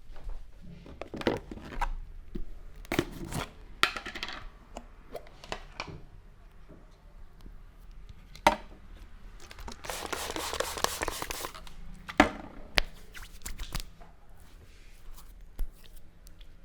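Hands rubbing, scrunching and pulling at hair and scalp during a head massage: bursts of rustling and scratching, a longer rustle about ten seconds in, and a few sharp cracks, the loudest about eight and a half and twelve seconds in.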